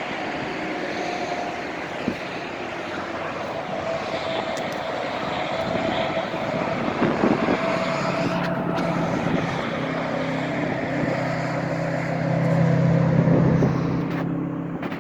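Steady rushing background noise, with a low engine drone joining about eight seconds in, growing loudest near the end and then fading.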